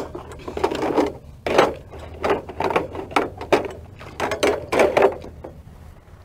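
Hands working grill grates and burners around in a galvanized tub of soapy water: a string of short sloshes and splashes, about two a second.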